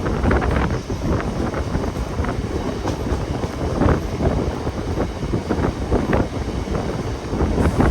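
Mumbai suburban electric local train running at speed, a steady rumble of wheels on track, with heavy wind buffeting the microphone in irregular gusts.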